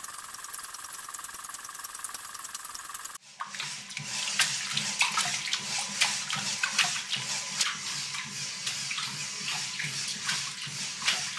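Water sloshing and splashing in a glass aquarium tank as waves from a LEGO Technic wave generator break against a small LEGO sea wall. It starts as a steady hiss, then after a cut about three seconds in turns to choppy, irregular splashing over a low steady hum.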